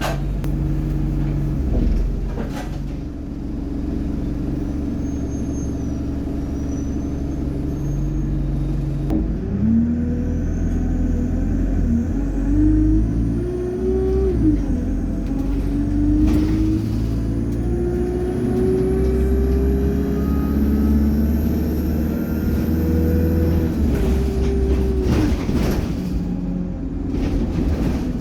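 ADL Enviro200 single-decker bus's diesel engine running steadily, then pulling away with its engine note climbing and dropping back at two gear changes of the Allison automatic gearbox. A thin, high turbo whine rises over the engine as it accelerates.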